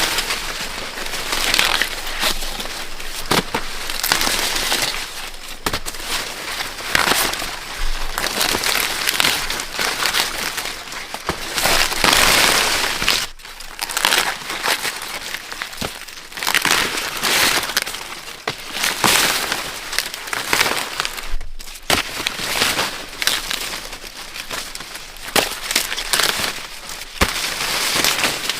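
Dry corn leaves and husks rustling and crackling in irregular bursts, with a few sharp snaps.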